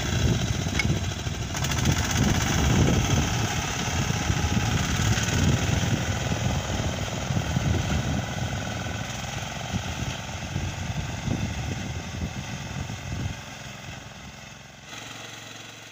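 Four-wheel reaper binder running steadily with its small engine as it cuts and binds wheat, growing fainter over the last few seconds as it moves away.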